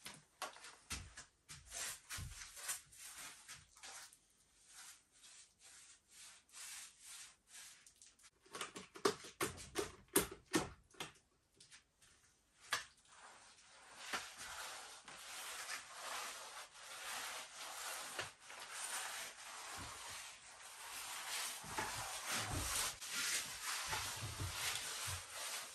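Paintbrush brushing lime whitewash onto a stove: scattered light strokes, a few louder strokes near the middle, then steady continuous brushing.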